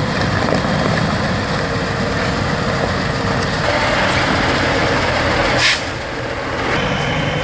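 Heavy truck engine running steadily under load. About five and a half seconds in there is a brief loud burst, after which the sound drops a little quieter.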